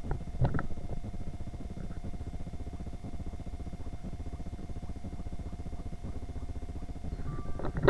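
Supermarket checkout background noise: a steady low rumble with a faint constant hum. A single knock comes about half a second in, and louder knocks and clatter start near the end.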